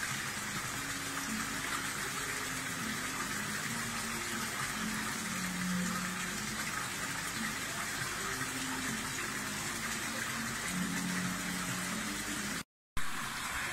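Steady gush of water pouring from a pipe outlet and splashing into a koi pond. It drops out for a split second near the end.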